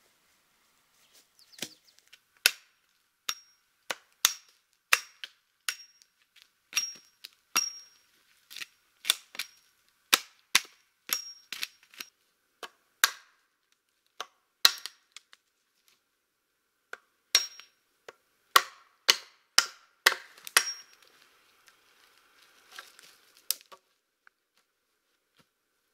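Hatchet chopping pine poles and branches: a long run of sharp blows about one a second, many with a brief high metallic ring. The chopping stops about 21 s in, followed by a few seconds of softer rustling and knocks as wooden poles are handled.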